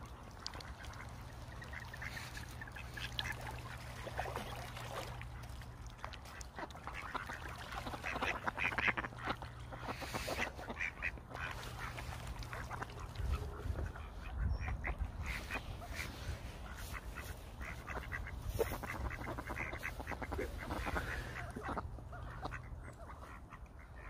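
Mallards quacking in bouts on and off, over a steady low rumble that swells for a couple of seconds midway.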